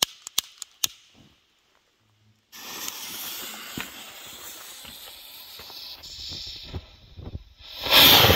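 A few sharp clicks, then a firework rocket's fuse hissing and crackling for several seconds, ending in a sudden loud rushing burst near the end as the rocket goes off inside a large mine chamber.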